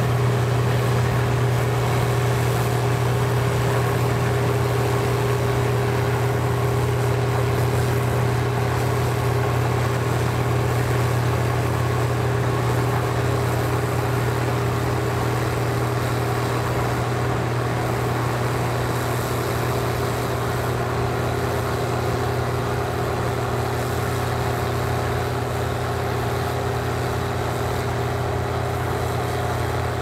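Case IH 1660 Axial-Flow combine running under load as it harvests corn. Its diesel engine and threshing gear make a constant drone with a strong low hum, fading slightly as the machine moves away.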